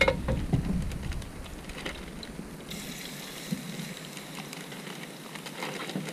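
Fish fillets sizzling as they are laid in a hot oiled frying pan, after a knock at the very start. The sizzle starts suddenly about two and a half seconds in and crackles up again near the end as a second fillet goes in.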